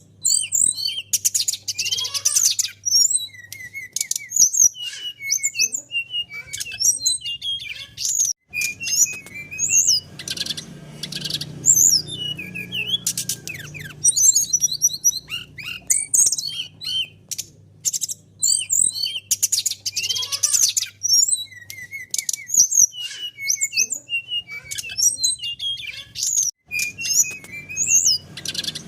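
Brown-chested jungle flycatcher (sikatan rimba dada coklat) singing: rapid high chirps and whistled trills, with the same run of phrases coming round again about 18 seconds later, over a low steady hum.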